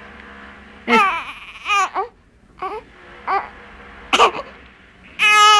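Young infant crying in short, high-pitched wails that rise and fall, about one a second, with a longer, louder cry near the end.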